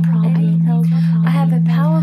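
Background music built on a loud, steady low hum, with a voice speaking softly over it.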